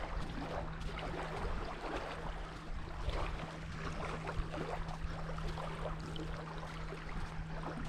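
Footsteps on damp sand along a river shore, a run of short irregular scuffs, over a steady low hum.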